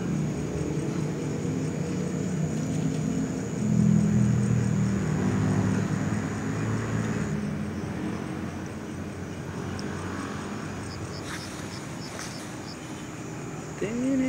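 Engine of a passing motor vehicle, a low steady drone that swells about four seconds in and then slowly fades away.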